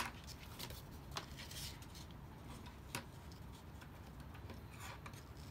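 Light clicks and taps of hands setting down and picking up small craft tools and foam on a wooden workbench: a sharp click at the very start, another about three seconds in, with faint rustling between.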